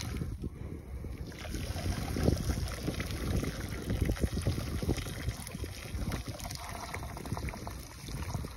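Runny masonry repair grout pouring from a plastic bucket and slopping over a steel stanchion's base plate around its bolts, with wind rumbling on the microphone.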